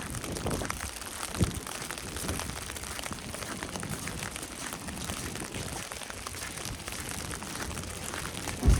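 Footsteps crunching through snow over a steady fine crackling patter of falling snow. Two low thumps: one about a second and a half in, and a louder one near the end.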